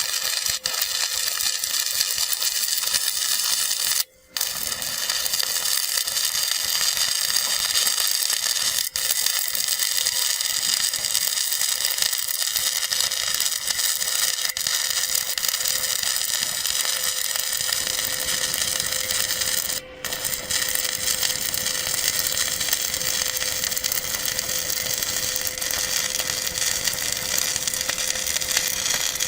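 Stick-welding arc on an E6013 electrode, a steady frying crackle laid down while running a flat fillet weld, with a steady hum underneath. The crackle drops out briefly about four seconds in and again near twenty seconds.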